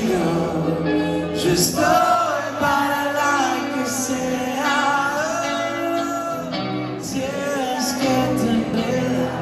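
A rock band playing live in a large hall, with electric guitar under a male lead vocal singing.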